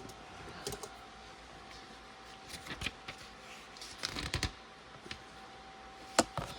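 Plastic LEGO pieces being handled: a few scattered light clicks and rustles, with a faint steady hum behind them.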